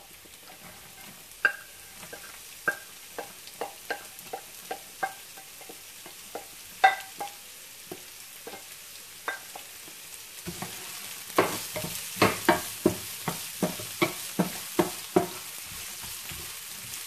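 Chopped yard-long beans sizzling in hot oil with dried chilies and garlic in a frying pan, stirred with a wooden spatula that knocks and scrapes against the pan. About ten seconds in the sizzle gets louder and the knocks come quicker.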